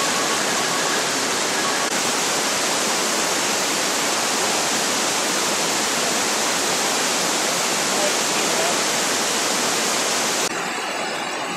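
Waterfall rushing: a steady, loud roar of falling water. Near the end it switches abruptly to a quieter, different rushing noise.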